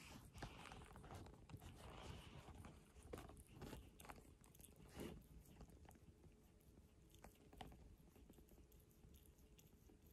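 Faint, irregular soft clicks and scratchy strokes of a kitten licking another kitten's head and fur.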